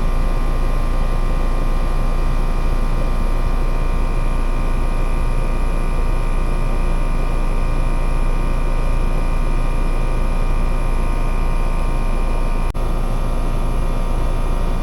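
Heat pump running steadily, its compressor and fan under high head pressure that is still climbing (about 140 over 441), which the technician reads as an overcharged system. There is one brief dip in the sound near the end.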